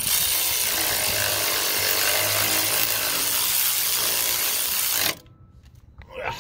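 Cordless electric ratchet running steadily for about five seconds as it drives in a bolt on an alternator's mounting bracket, then stopping suddenly.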